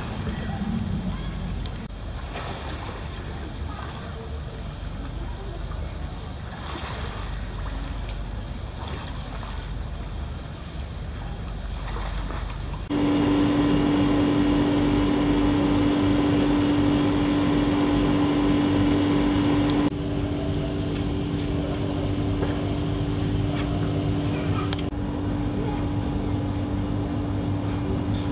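Motorboat engine running steadily under wind and water noise. About halfway through, a sudden cut brings in a louder, steady engine hum with a clear, even pitch.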